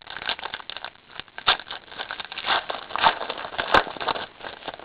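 Crinkling and rustling of a trading-card pack wrapper and cards being handled, in a run of irregular small crackles and scrapes.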